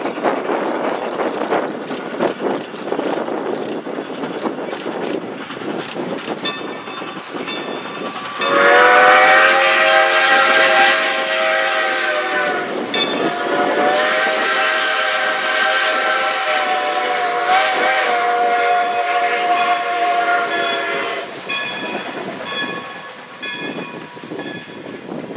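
Steam locomotive working hard with a passenger train, its exhaust beats audible, then sounding two long blasts on a multi-tone chime whistle, the second longer, about eight seconds. The whistle is the loudest sound. Near the end the coaches roll by with rhythmic wheel clicks on the rail joints.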